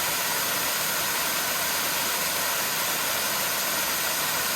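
Steady rushing noise of flowing creek water, even and unbroken.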